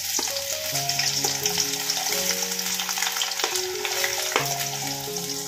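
Diced raw potatoes sizzling as they go into hot oil in a stainless steel kadhai, with a few sharp clicks. Background music plays underneath.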